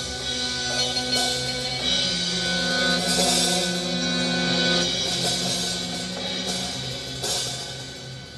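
Live instrumental music from a small band: a drum kit with cymbal washes swelling a few times, under guitar and long held notes that fit the band's accordion.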